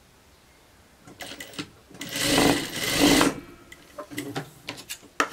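Industrial sewing machine running in one short burst of just over a second, about two seconds in, stitching elastic onto gathered chiffon. A few light clicks come before it, and fabric-handling clicks follow it.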